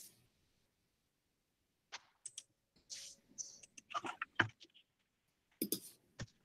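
Faint, irregular clicks and taps of typing on a computer keyboard, starting about two seconds in.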